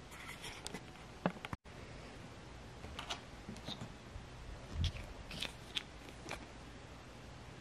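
Scattered small clicks, taps and scrapes from a palette knife and plastic acrylic paint bottles being handled, with a soft thump about five seconds in. The sound cuts out completely for a split second just after a second in.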